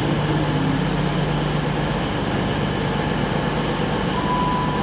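Steady hum of a Class 220 Voyager diesel train idling at the platform, with a short high beep near the end.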